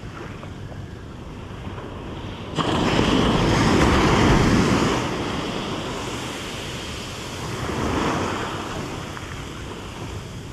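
Ocean surf breaking and washing up the beach. One big wash starts suddenly about two and a half seconds in and fades, and a smaller one follows near the end.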